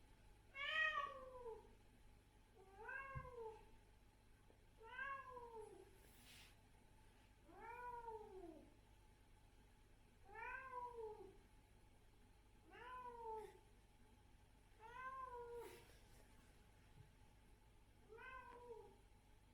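Adult female cat meowing over and over: eight drawn-out meows about two to three seconds apart, each rising and then falling in pitch.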